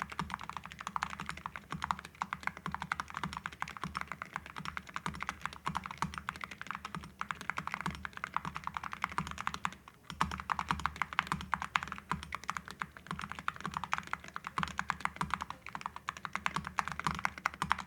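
Fast, continuous typing on a Luminkey60 LX 60% custom keyboard with Gateron Ink V2 Pro Black linear switches and full-metal Awekeys keycaps: a dense run of keystrokes with a low, relaxed sound. There is a brief lull about ten seconds in.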